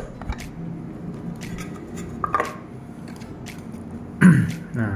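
Light clicks and knocks of a hard acrylic display-case cover being lifted off a diecast model's plastic base and handled. Near the end, a short vocal sound from the man, the loudest thing here.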